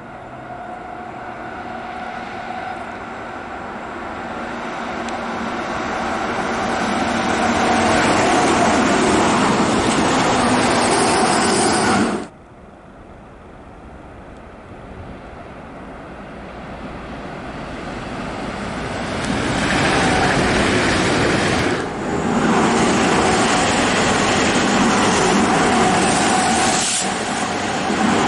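Electric trains running past close by. A Berlin S-Bahn train approaches and grows steadily louder, then the sound cuts off suddenly about 12 seconds in. A red DB Talent 2 electric multiple unit then approaches and builds to a loud pass, and near the end another S-Bahn train runs by, with wheel and rail noise and a steady motor hum.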